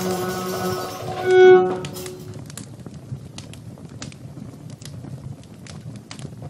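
The closing chord of oud, cümbüş and violin rings out, the violin swelling on a last note about a second and a half in. The music stops about two seconds in, leaving a wood fire in a fireplace crackling with scattered pops.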